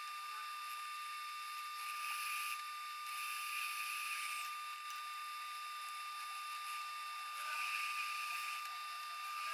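A small high-speed power tool whining steadily at a high pitch, with three stretches of louder hissing as it cuts or grinds against steel, about two seconds in, around three to four and a half seconds in, and near the end.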